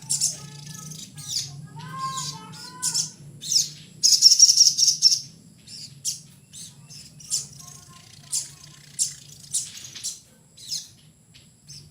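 A sogok ontong (little spiderhunter) songbird calling busily: a quick series of short, sharp, high chips with a louder burst of song about four seconds in. A steady low hum runs underneath.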